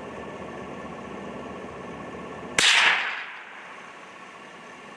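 A single rifle shot about two and a half seconds in, sharp and loud, ringing off over about half a second, above a steady background hum.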